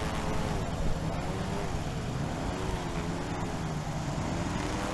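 Airboat engine and propeller running, its pitch drifting a little up and down.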